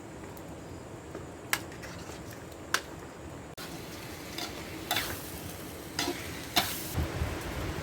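Cooking sounds: a handful of sharp clinks and knocks of a utensil against a pan or bowl, over a steady hiss.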